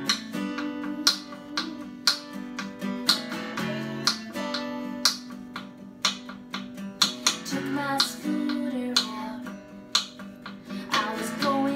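Song intro on a strummed acoustic guitar in a steady rhythm, with a snare drum played along and a voice singing wordless ad-libs over it.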